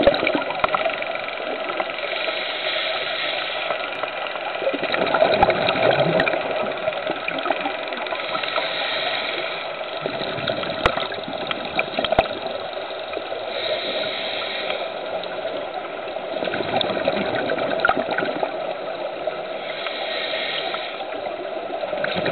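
Scuba diver breathing through a regulator, heard underwater: a hissing inhalation every few seconds and rumbling bubbles on each exhalation, over a steady underwater wash.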